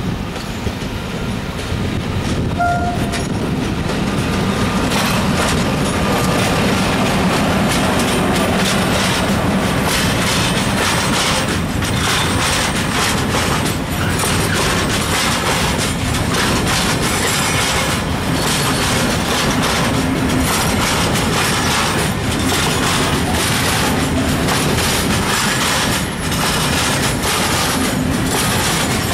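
A freight train of tarpaulin-hooded steel-coil wagons rolls past close by behind an electric locomotive, with a steady rumble and wheels clattering over the rail joints in a repeating rhythm. A brief high tone sounds about three seconds in.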